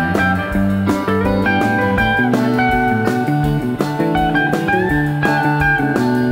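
Live rock band playing an instrumental passage: electric guitar lines with bent notes over bass and a steady drum beat of about two strokes a second.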